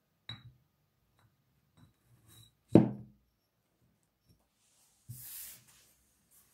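Painted glass soda bottles knocking and clinking as one is set down beside the others in a jute-rope basket: a light clink with a short ring, a few small taps, then one louder knock a little before the middle. A brief rustle follows about five seconds in.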